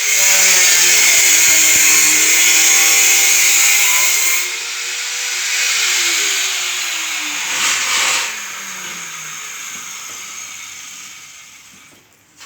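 Handheld power tool running under the trigger, its motor whine rising and falling in pitch, loudest in the first few seconds with a short burst again about eight seconds in, then winding down and stopping near the end.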